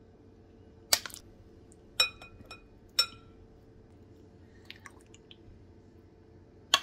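A metal spoon clinking against a glass bowl as jelly cubes are spooned in: three sharp clinks about a second apart, each with a brief ring, then a few faint soft taps and one more clink near the end.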